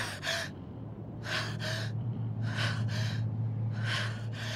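A young woman's heavy, ragged panting, about six breaths mostly in in-out pairs, over a low steady hum. It is the gasping of a fighter worn out and near her limit in a long battle.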